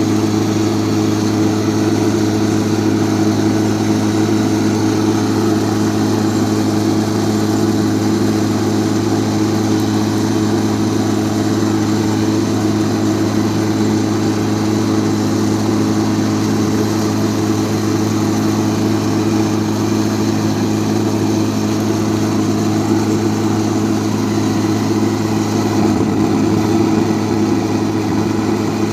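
An engine running steadily at a constant speed, an even low hum that doesn't rise or fall.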